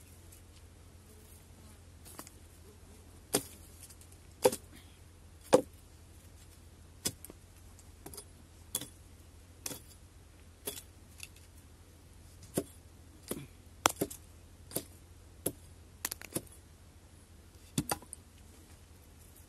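Axe chopping into the roots and base of a felled tree: about eighteen sharp strikes at uneven gaps, roughly one a second, over a steady low hum.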